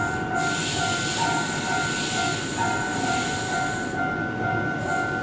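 Keihan 7200 series electric train standing at a station platform, giving off a steady two-note whine, with a hiss that starts about half a second in and stops about four seconds in.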